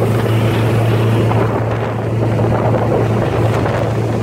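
Small motorboat's engine running steadily at cruising speed, a constant low hum, with wind buffeting the microphone.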